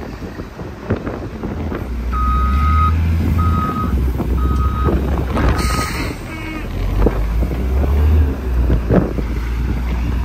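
Heavy truck backing up: its reversing alarm beeps four times, about once a second, over the low rumble of the truck's engine, with a short hiss of air about six seconds in.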